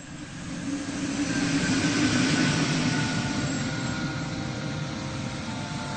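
Aircraft engines passing: a broad rushing roar that swells over the first two seconds and then slowly fades, with a few faint steady tones above it.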